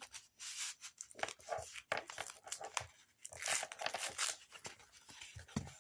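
Foam packing pieces rustling and crunching as hands dig through them in the box, with many irregular crackles.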